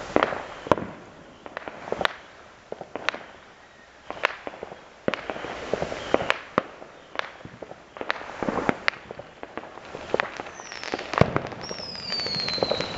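Fireworks and firecrackers going off around the neighbourhood: many sharp bangs and pops at irregular intervals, some much louder than others. Near the end a whistling firework sounds, its whistle falling in pitch.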